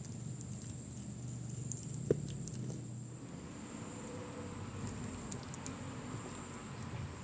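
Kitten chewing and tearing at a piece of meat: soft, irregular wet chewing clicks, with one sharper click about two seconds in.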